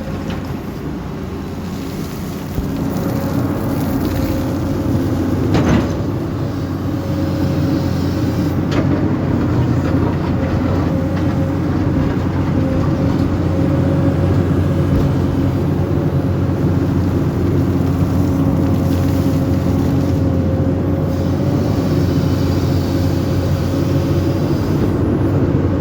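Excavator's diesel engine running steadily under load with a steady whine over it, getting louder a couple of seconds in. A sharp knock near six seconds and a fainter one a few seconds later.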